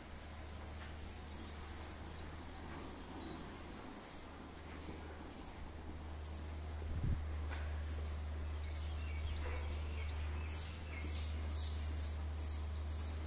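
Small birds chirping: short, high, repeated chirps that come faster and louder from about ten seconds in, over a low steady hum, with one soft knock about seven seconds in.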